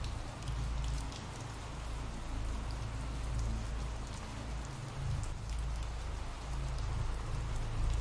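Steady rain ambience: an even hiss of rainfall with scattered sharp drop ticks and a low rumble underneath.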